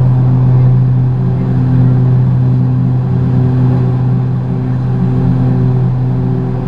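Twin Pratt & Whitney PT6A turboprop engines and propellers of a Beechcraft King Air F90 at takeoff-climb power, heard inside the cockpit as a loud, steady low propeller drone.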